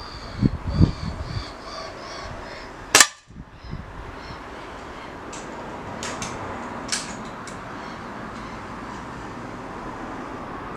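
A single sharp air rifle shot about three seconds in, followed by a few fainter clicks.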